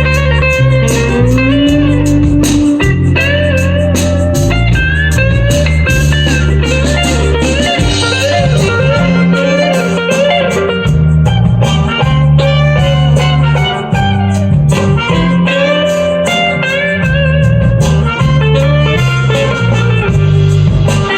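Instrumental break of a blues song played back through a P3A hi-fi power amplifier under test: a lead electric guitar plays bending melody lines over a stepping bass line and a steady drum beat.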